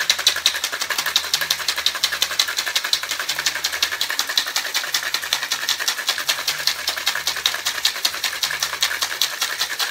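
Ice cubes rattling hard and fast inside a metal cocktail shaker, a rapid, even rattle from vigorous shaking to froth a whiskey sour with egg white.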